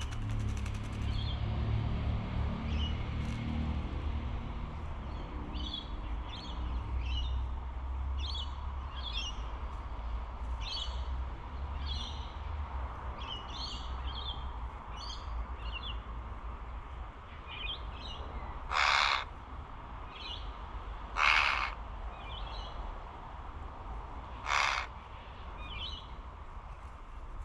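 Wattlebirds calling: a run of short, high chirps, then three loud, harsh, rasping bursts a few seconds apart, over a low background rumble.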